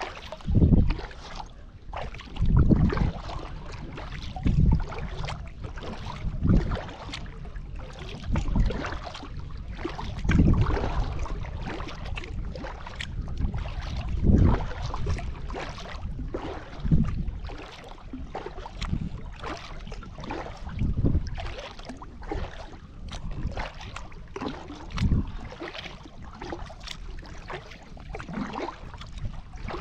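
Kayak paddle strokes on calm water, one about every two seconds, each a low swish and splash as the blade dips and pulls, with water dripping in between.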